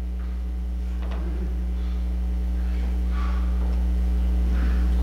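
Steady electrical mains hum through the sound system, slowly growing louder, with a few faint, brief, indistinct sounds over it.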